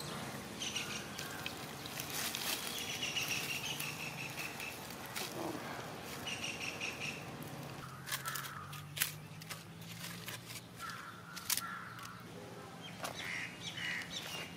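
Birds calling repeatedly. In the second half come sharp crackles and clicks from charred, dried banana leaves being peeled open off a roasted fish.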